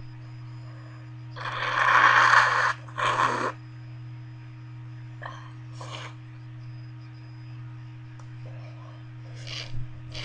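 A person blowing their nose into a tissue: one long blow of about a second and a half, then a short second blow, followed by a few faint sniffs after a sneezing fit.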